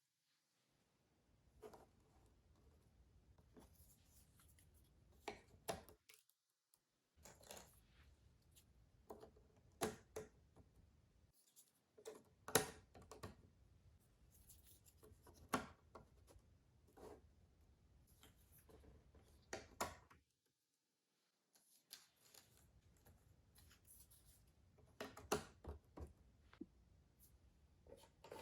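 Cardboard jigsaw puzzle pieces being handled and set into place: quiet, irregular clicks and taps with light scraping, a few taps louder than the rest.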